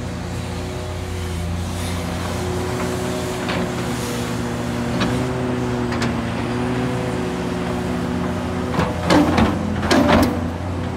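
Hitachi Zaxis 670LCR excavator's Isuzu diesel engine running steadily under digging load. Near the end, two loud bursts of scraping and knocking as the bucket digs into the earth.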